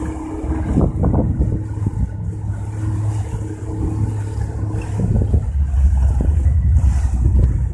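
1989 Yamaha 40 hp two-stroke outboard running with the boat under way, its low hum growing louder about five seconds in. Wind buffets the microphone, and there are scattered thumps as the aluminum hull meets the chop.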